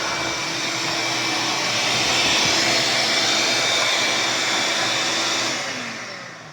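Ridgid 5.0 HP 12-gallon wet/dry shop vac running with a steady whir, then switched off about five and a half seconds in, its motor winding down.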